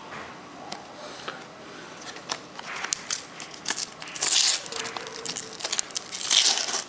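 Panini sticker packet being handled and torn open: paper wrapper crinkling and tearing, with scattered sharp clicks that turn into denser rustling bursts in the second half.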